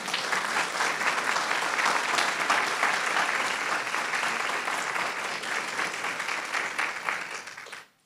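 Audience applauding: steady clapping from many hands that tapers off and stops near the end.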